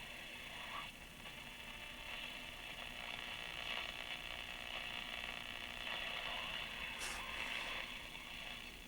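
Panasonic R-111 AM transistor radio giving steady hiss and static from its speaker while being tuned between stations, with a brief crackle about seven seconds in.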